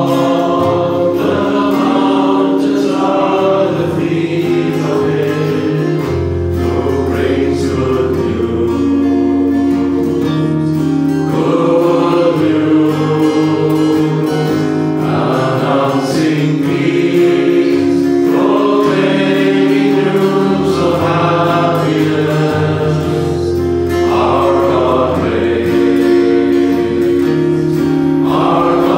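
Devotional hymn sung by several voices in harmony, accompanied by acoustic guitar over sustained low notes.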